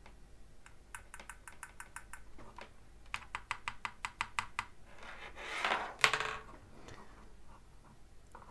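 Light plastic-and-metal clicks from handling a vintage DYMO-style embossing label maker: a few scattered clicks, then a fast even run of about eight clicks a second a few seconds in, followed by a brushing rustle and one sharp click about six seconds in.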